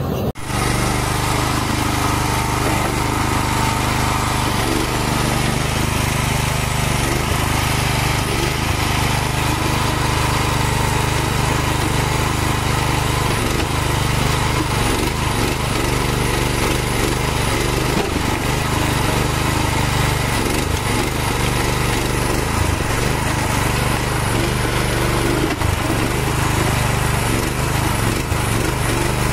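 Small engine of an A23M mini excavator running steadily while the machine digs with its bucket.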